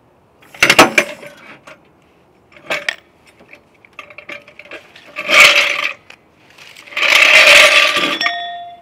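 Metal jack gear clanking and scraping against pavement as the car is let down and the jacks are pulled out: several loud metallic bursts, the last two longest. The last ends in a brief metallic ring.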